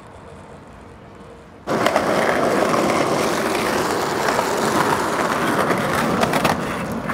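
Quiet background hum, then a sudden cut about two seconds in to a skateboard rolling over street pavement: a loud, steady rolling noise of the wheels with scattered sharp clacks.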